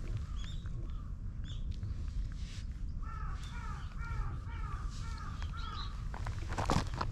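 A bird calling outdoors: a quick run of about eight short arched calls, about three a second, starting about three seconds in. A few fainter, higher calls come earlier, a steady low rumble runs underneath, and there is a sharp scuff near the end.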